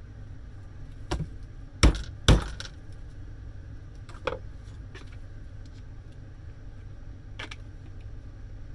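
A handful of hard metallic knocks and clinks, irregularly spaced, the two loudest close together about two seconds in: parts of a Spear & Jackson garden shredder's electric motor being struck to knock them off.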